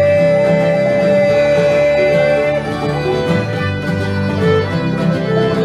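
Acoustic string band playing an instrumental break with banjos and guitar. A long held lead note sounds over the accompaniment for the first two and a half seconds or so, then gives way to a run of shorter notes.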